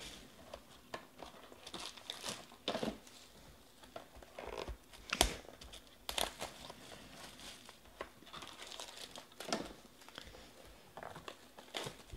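Clear plastic shrink wrap crinkling and tearing as it is pulled off a trading-card box, in irregular crackles with a sharper snap about five seconds in.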